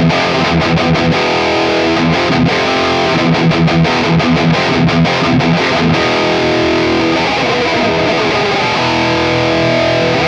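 Gibson Les Paul Special SL electric guitar played through distortion: picked and strummed chords, with some notes and chords left to ring.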